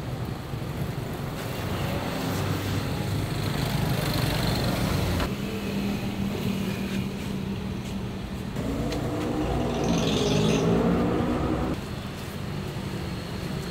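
Road traffic running steadily, with one vehicle's engine note rising and falling for about three seconds near the end as it passes.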